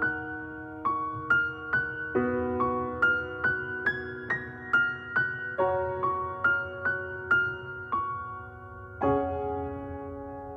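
Background music: a slow piano melody of single struck notes, about two to three a second, over held chords.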